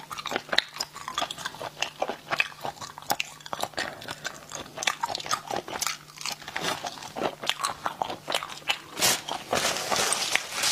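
Close-miked mouth sounds of a person eating spicy snails: chewing and biting, with many irregular small clicks, and a louder, noisier stretch near the end.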